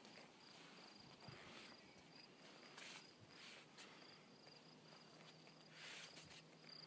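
Near silence: faint outdoor ambience with a faint, high, pulsing insect trill held throughout.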